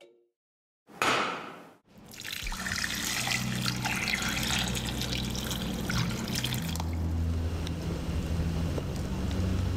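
Water pouring steadily into a pot of whole potatoes, starting about two seconds in. It follows a short, sudden loud sound about a second in.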